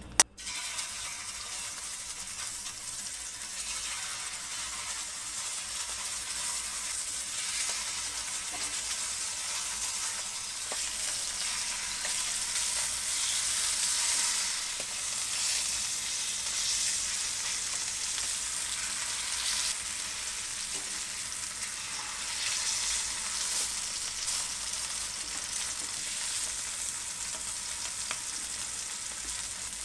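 Thin pork steaks sizzling steadily in garlic oil in a hot frying pan. The sizzle starts suddenly with one sharp knock right at the beginning, and a few light taps follow as tongs turn the meat.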